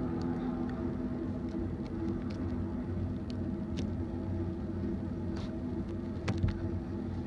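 BNSF intermodal freight train rolling past: a steady rumble and hum with scattered sharp clicks, and a heavier knock about six seconds in.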